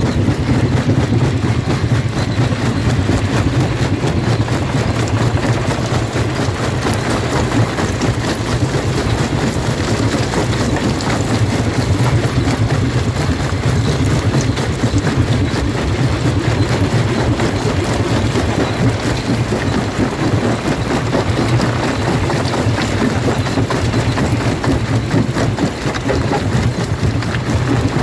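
Jaw rock crusher running and crushing stone: a loud, steady machine drone with a constant gritty rattle over it.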